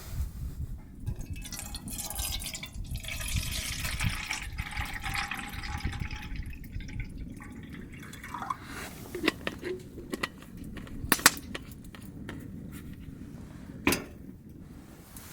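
Liquid being poured into a cup for several seconds, the pitch rising slightly as it fills, followed by a few sharp clicks and knocks.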